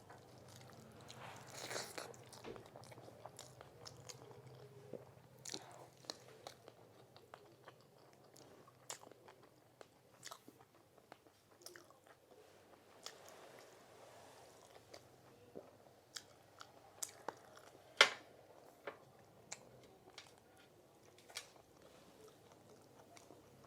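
A person chewing and eating food close to the microphone, with many small wet mouth clicks and smacks scattered throughout. One sharp click about eighteen seconds in stands out as the loudest.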